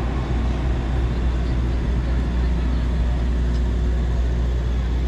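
A steady, low engine rumble running unchanged, with no bangs.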